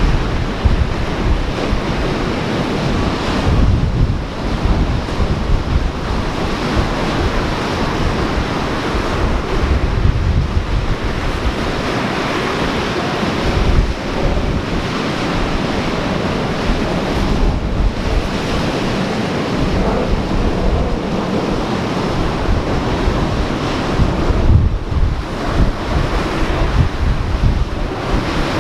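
Ocean surf washing steadily, with wind buffeting the microphone in gusts.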